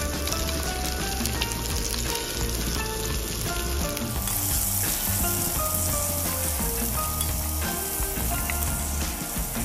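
Diced Spam and vegetables sizzling as they stir-fry in a pan, the hiss growing brighter about four seconds in, over background music with a steady beat.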